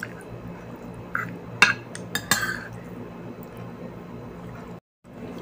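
A spoon clinking and scraping against a plastic food container several times in quick succession as food is scooped up.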